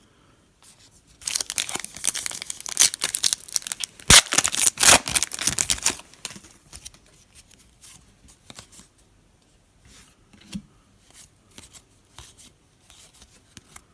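A 2017 Donruss football trading card pack's wrapper being torn open and crinkled for about five seconds, loudest about four seconds in. After that come faint scattered clicks of the cards being handled.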